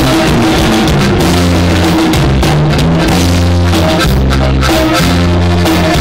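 A conjunto band playing a corrido: drum kit and bass notes stepping along under the band.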